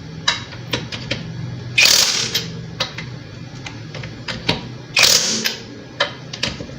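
DOWOX cordless impact wrench hammering in two short bursts about three seconds apart as it tightens lug nuts. Light clicks come between the bursts.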